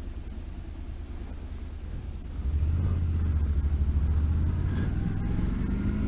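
Honda NC700X's parallel-twin engine heard through a helmet microphone, running low and quiet, then opening up about two and a half seconds in as the motorcycle accelerates away. The engine note rises and it grows louder, over a low rumble of wind.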